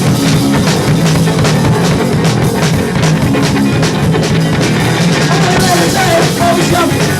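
A live rock band playing loudly: guitar, bass guitar and drum kit, with regular drum strikes over a steady bass line and no words sung.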